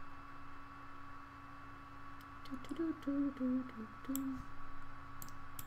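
A person humming a handful of short, low notes that step up and down, over a faint steady electrical hum.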